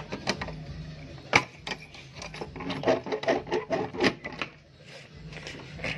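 Metal clicks, key jingling and scraping as a padlock is unlocked and worked free of a rusty iron sliding barrel bolt on a door. There is one sharp click early on and a run of rapid rattling and scraping about halfway through.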